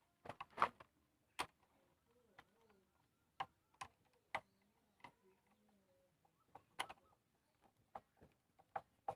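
Faint, irregular clicks and light taps, about fifteen in all at uneven spacing, from handling and switching the motorcycle's handlebar switch gear.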